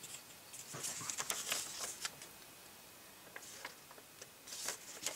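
Folded cardstock being handled: light paper rustles and crinkles, in a cluster about a second in and again near the end.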